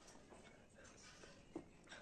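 Near silence: room tone, with two faint short sounds close together near the end.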